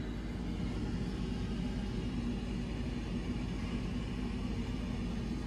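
Steady low mechanical hum and rumble, unchanging throughout.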